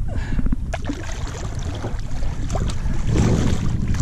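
A hooked tarpon splashing and thrashing at the surface right beside the boat, with the splashing heavier near the end as the leader is grabbed. Wind rumbles on the microphone throughout.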